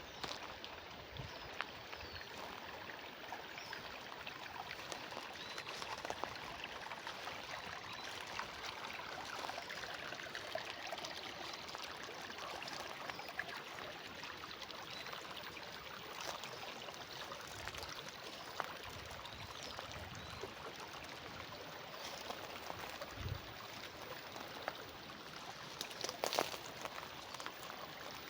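Water running steadily along a small irrigation channel, an even trickling flow. There are scattered short clicks throughout, with a brief cluster of sharper clicks near the end.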